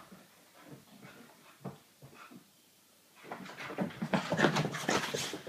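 Wheaten Terrier puppy playing wildly: a few soft thumps, then from about three seconds in a fast run of breathy panting and scuffling.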